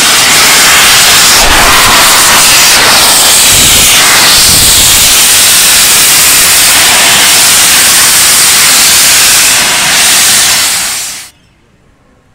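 Steam hissing loudly at close range from the LNER A4 Pacific locomotive Sir Nigel Gresley as its cylinder drain cocks blow off; it stops abruptly about eleven seconds in.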